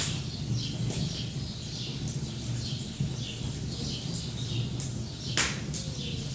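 Small birds chirping repeatedly over a wood fire crackling with scattered sharp pops, the loudest about five seconds in, and a low steady rumble underneath.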